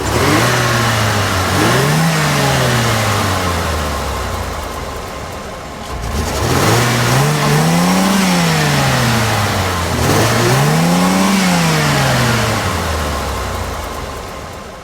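A car engine revving up and back down three times, each rev a smooth climb and fall in pitch, fading out near the end.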